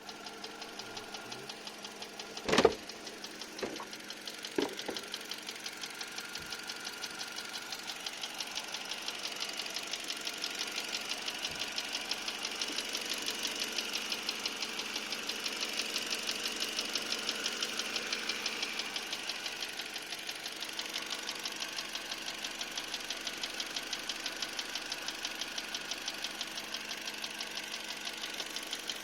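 Car engine idling with a regular, steady knock, which the owner suspects is piston slap from the fourth cylinder or a knocking piston pin. A few loud sharp thumps come about two and a half to five seconds in. The engine gets a little louder through the middle and then settles back.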